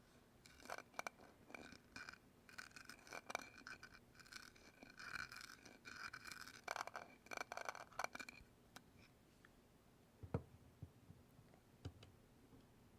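Close-miked scratching on a hard object as an ASMR trigger: quick rough strokes for about eight seconds, then a few soft taps.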